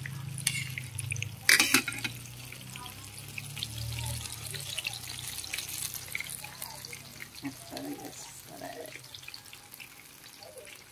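Batter-coated bananas deep-frying in a pan of hot oil, the oil sizzling and crackling steadily. A single sharp knock comes about one and a half seconds in.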